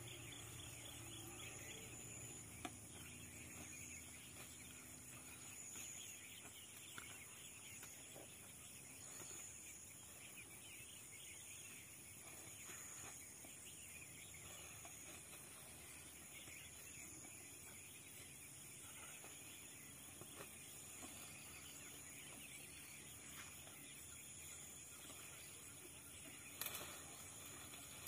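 Near silence: faint outdoor ambience with a few soft ticks and one brief crackle near the end.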